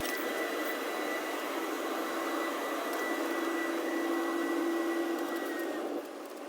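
Electric gear-oil transfer sprayer running steadily, pumping gear oil up into an outboard's lower gear case: a steady whir with a whine on top. About six seconds in, the whine stops and the sound drops quieter.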